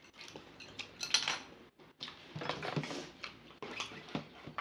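Chopsticks and a ladle clinking against ceramic bowls in a series of clinks, the loudest cluster about a second in.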